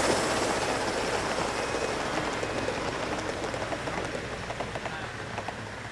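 Gauge 1 model train's wheels running on the track as it passes, a steady rushing rumble that fades as the train moves away.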